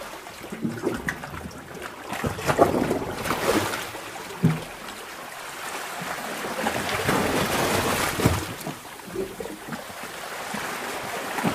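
Underwater sea-cave ambience: water surging and sloshing, with gurgles and a few sharp splashes, and a broader swell building from about six seconds in.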